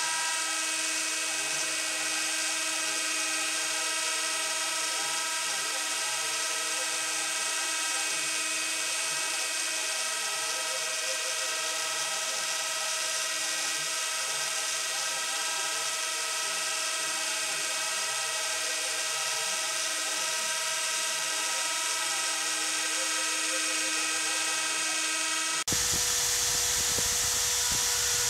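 CNC router running a test cut: the spindle and stepper motors make a steady, high-pitched whine of several tones. About 26 seconds in, the sound changes abruptly to a slightly louder, noisier cutting sound with a different whine.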